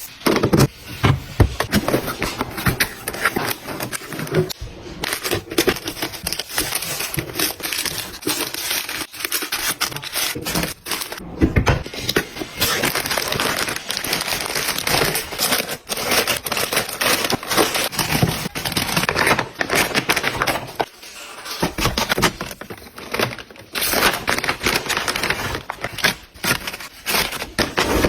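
Packaging being handled, crinkling and rustling with many small clicks and taps, dropping away briefly about three quarters of the way through.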